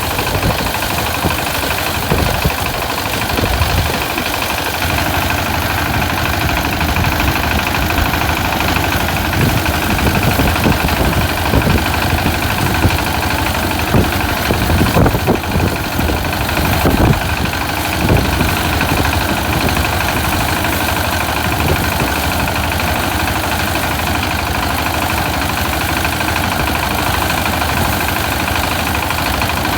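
Small engine of a locally built rice-harvesting machine running steadily, with irregular knocks and clatter through the middle.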